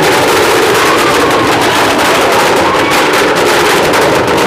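A string of firecrackers going off in a rapid, continuous crackle, mixed with loud drum-heavy music.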